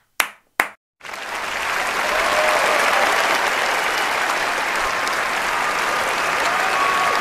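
Two single sharp hand claps, then about a second in a large audience bursts into steady, sustained applause.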